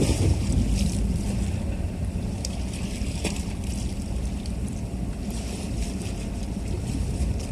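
Wind rumbling on a smartphone microphone over the steady low drone of an incoming car ferry's engines, with a few faint clicks.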